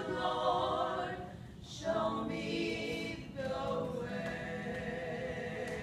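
Church choir of men and women singing an anthem: sung phrases broken by two short breaths, then a chord held steadily through the last couple of seconds.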